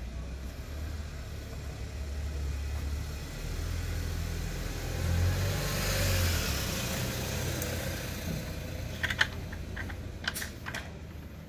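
A passing road vehicle: a low rumble and hiss that swell to a peak about halfway through and then fade. Near the end come a few sharp clicks as the scooter's oil filler cap is fitted back by hand.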